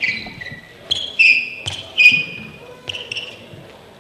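Squash shoes squeaking in short chirps on the court floor, mixed with three or four sharp knocks of a squash ball being bounced on the floor and racket.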